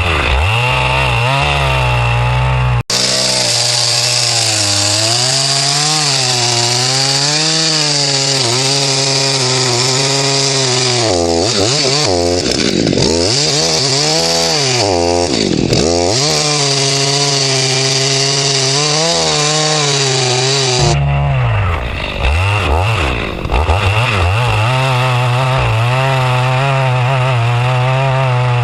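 Chainsaw running at high revs while cutting into wood, its engine pitch wavering as the chain loads up, with a few brief dips off throttle around the middle. There is a sudden break about three seconds in, and near the end the cutting hiss drops away while the engine keeps running.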